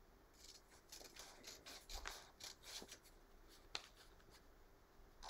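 Faint, irregular snips of scissors cutting a graph-paper net, with a few soft clicks and paper handling between them.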